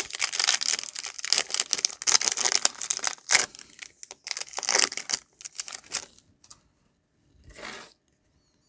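Plastic-foil wrapper of a Topps Chrome trading-card pack being torn open and crinkled, a dense crackling rustle lasting about six seconds, with one more short rustle near the end.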